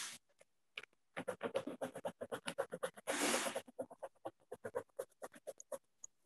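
A rapid run of short scratching clicks, about six a second, with a longer scraping rustle about three seconds in. It is picked up through a video-call participant's microphone.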